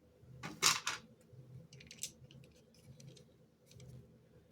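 Handling noise from assembling a clamp lamp: a louder scrape just under a second in, then scattered light clicks as small screws and metal parts are fitted into the clamp mount.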